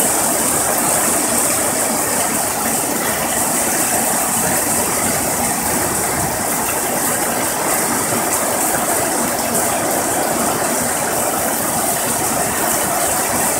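Heavy rain pouring steadily, with water running off the roof edge in streams and splattering below.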